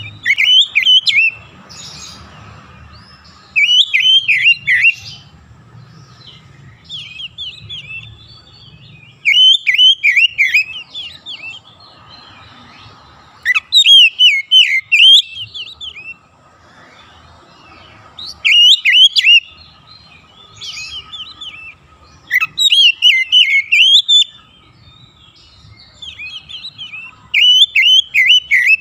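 Oriental magpie-robin singing in full voice: about seven loud bursts of rapid, twisting whistled phrases, each one to two seconds long and a few seconds apart, with softer notes between them.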